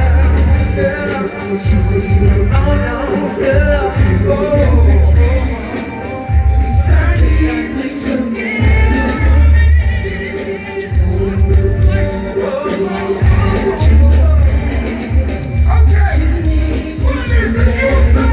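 Loud pop music with singing and a heavy, pulsing bass beat, as heard in a large hall.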